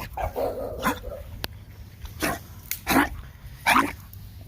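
A dog barking: about four short, sharp barks, roughly a second apart.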